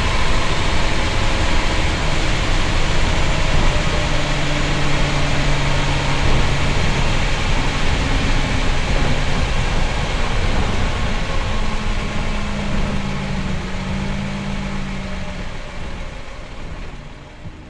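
Cummins L10 diesel engine of a Leyland Tiger bus pulling along the road, heard from inside the cab with steady road noise. The engine note rises in pitch about two-thirds of the way through, and the sound fades out near the end.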